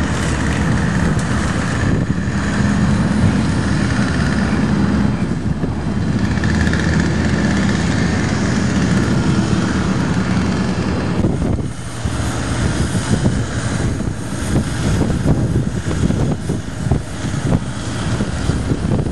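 A motor engine running steadily, with a low hum under a rushing noise; it dips briefly and turns more uneven about twelve seconds in.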